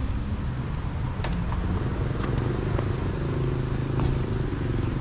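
A motor vehicle engine running steadily at low revs close by, with a few light clicks over it.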